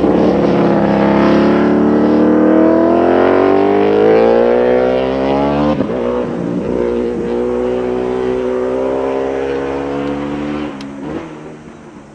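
Honda RC211V's 990 cc Big Bang V5 four-stroke racing engine at full throttle. Its note climbs steadily for about six seconds, drops at an upshift and pulls again. There is another shift near the end as the bike moves away and the sound fades.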